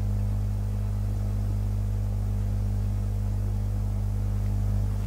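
A steady low hum with no other events: a constant drone of a few low tones that does not change.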